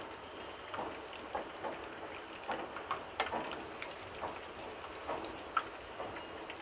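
Batter-coated chicken pieces frying in hot oil in a wok: a steady sizzle with irregular crackles and pops.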